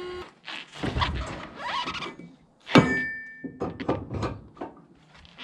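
Handling knocks and thuds, with one sharp metallic clank that rings briefly just under three seconds in; a steady hum cuts off right at the start.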